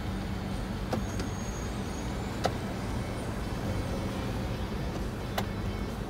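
Ford Ranger's engine idling steadily, with four sharp clicks from the column gear shifter being worked on its freshly reconnected transmission linkage. The loudest click comes about two and a half seconds in.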